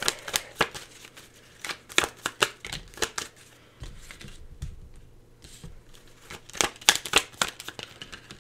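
A tarot deck being shuffled by hand, the cards giving quick, irregular crisp clicks and riffles, busiest about two seconds in and again near the end.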